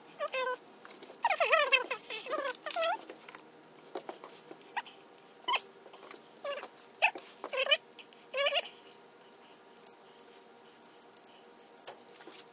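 A cat meowing over and over in short, pitch-bending calls, a quick cluster of them a second or two in and single meows up to about two-thirds of the way through. Faint light clicks follow near the end.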